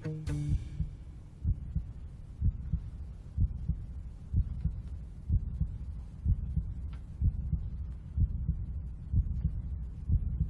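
Heartbeat sound effect: low, steady thumps about once a second, the pounding heart of someone in love.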